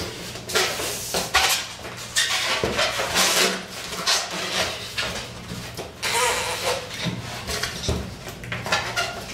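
Latex party balloons being blown up by mouth: a series of forceful rushing breaths into the balloons, each under a second long, coming roughly every second.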